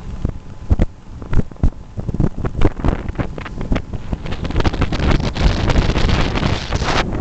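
Wind buffeting the microphone on a moving motorboat: irregular gusty thumps that build into a steady rushing noise from about halfway through.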